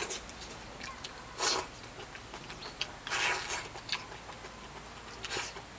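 A person eating soupy spicy hot pot from a bowl with chopsticks: three short slurps, about a second and a half in, about three seconds in and near the end, with light clicks between them.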